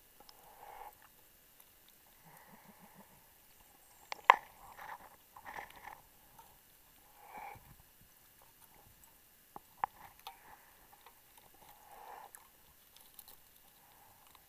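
Muffled underwater handling noise from a diver's hands and gear as he lays a guideline on a wreck: faint scrapes and rustles with a few sharp clicks, the loudest about four seconds in and another near ten seconds.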